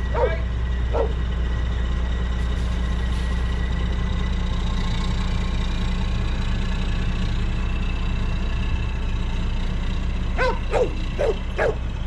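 A dog barking, twice just after the start and then a quick run of about five barks near the end, over the steady low drone of an idling diesel semi truck.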